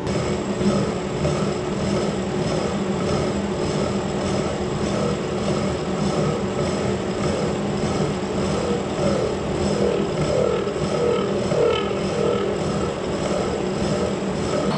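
Kearney & Trecker horizontal milling machine running, its arbor-mounted cutter milling a spline slot along a long steel shaft. A steady machine drone with a faint regular pulse about twice a second.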